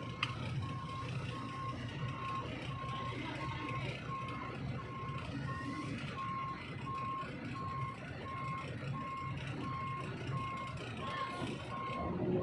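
A vehicle's reversing alarm beeping steadily, about three beeps every two seconds, over the low, steady rumble of a heavy vehicle's engine running, the sign of a truck or forklift backing up.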